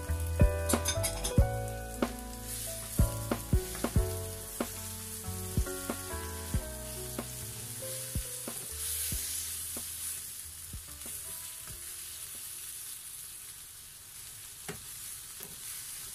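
Beef and broccoli stir-fry sizzling in a frying pan while a wooden spatula stirs and tosses it, knocking against the pan in many sharp clicks. The clicks come thick in the first half and thin out later, over a steady sizzle.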